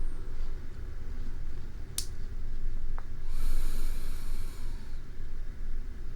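A sleeping person breathing, recorded close up: two small sharp clicks, then a long breath about three and a half seconds in, over a steady low background rumble.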